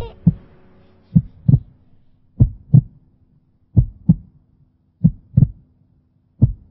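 Heartbeat: paired low lub-dub thumps, one pair about every 1.3 seconds, over a faint steady hum.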